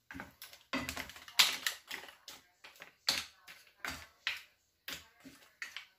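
A wooden spoon stirring mussels and shrimp in a frying pan: irregular clacks and knocks of spoon and mussel shells against each other and the pan, a couple a second.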